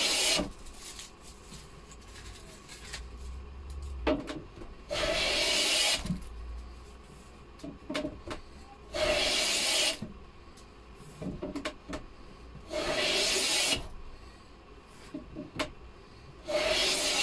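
Metal bench plane shaving the beech edge of a cupboard door: four long strokes about four seconds apart, each a swish of about a second. The door edge is being planed down a millimetre or two so that it fits the gap in its frame.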